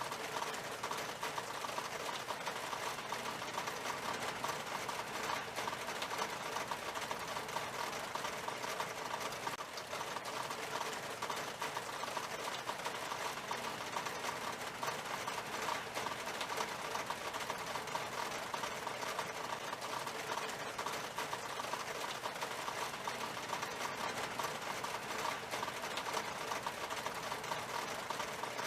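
Rain falling on a glass window pane: a steady, dense patter of small drop ticks that never lets up.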